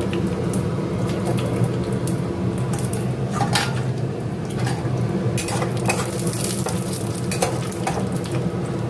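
Peanuts frying in hot oil in a kadai, sizzling, while a metal spatula stirs them and clinks and scrapes against the pan now and then. A steady low hum runs underneath.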